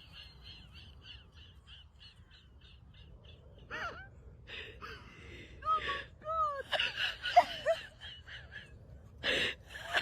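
An animal calling: a quick run of short, high calls, about three a second, fading away over the first few seconds, then several louder drawn-out calls that rise and fall in pitch.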